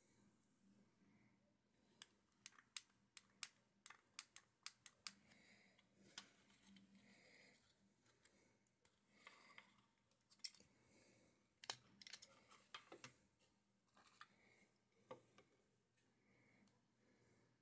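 Small plastic clicks and snaps from handling a headlamp's battery holder and AA batteries, a quick run of sharp clicks about two to five seconds in, then scattered single clicks, with soft handling rustle between.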